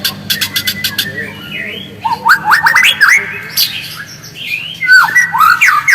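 White-rumped shama calling: a quick run of sharp ticking clicks in the first second, then rapid rising chirps and short whistles from about two seconds in, louder toward the end.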